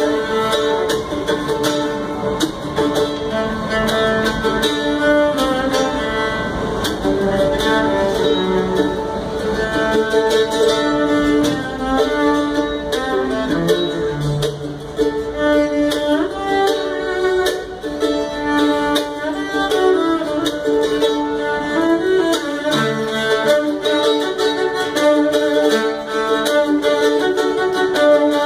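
A mandolin played with a pick and a bowed cello playing a tune together as a duo.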